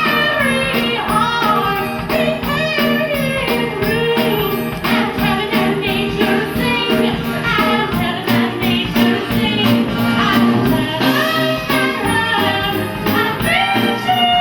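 Live Christmas music from a band: a steady beat with jingle bells over bass, and a sung or played melody on top.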